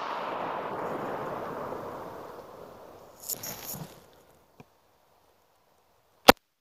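Zastava PAP M92 AK pistol in 7.62×39 mm firing a single sharp, loud shot near the end, as part of a string of deliberate, slowly spaced shots.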